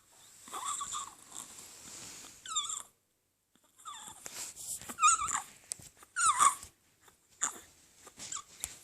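Laryngomalacia stridor: a run of short, high-pitched squeaky breaths that bend in pitch, the loudest two about five and six seconds in. The squeak is the sign of the floppy larynx narrowing the airway.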